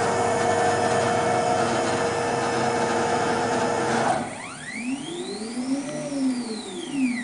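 Stepper motors of a homemade CNC gantry driving an axis. A steady motor whine and hum cuts off about four seconds in, then a whine rises and falls in pitch as the axis speeds up and slows down through a move.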